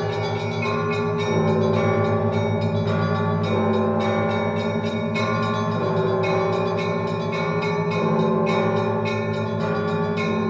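Orthodox church bells in a festal peal (prazdnichny zvon): small bells of several pitches struck in a quick, dense rhythm, several strikes a second, over the sustained ringing of larger bells.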